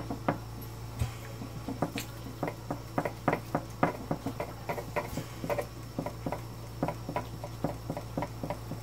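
Knife and fork cutting grilled steak on a plate: a run of light, irregular clicks and scrapes as the knife saws through the meat and taps the plate.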